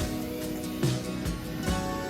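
Background music: held instrument notes over a steady beat, with a strike a little under once a second.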